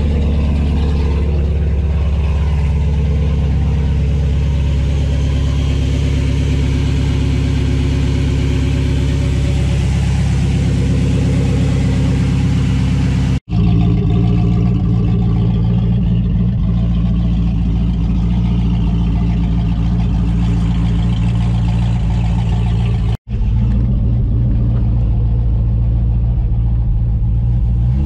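Chevy C10 pickup's engine running steadily at idle as it warms up after sitting. The sound drops out for an instant twice.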